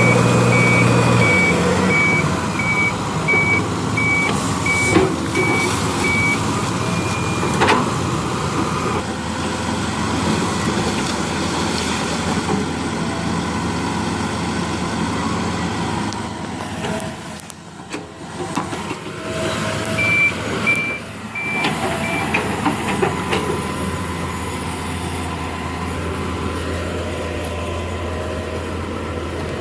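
Heavy diesel machinery running, with a reversing alarm beeping in an even series of high beeps at about one and a half a second for the first six seconds or so, then again briefly about two-thirds of the way through.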